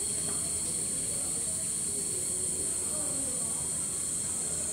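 Autumn cicadas singing in a steady, high, continuous buzz.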